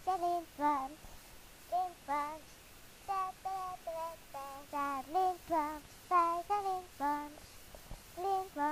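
A child singing a tune unaccompanied, in short separate notes broken into phrases.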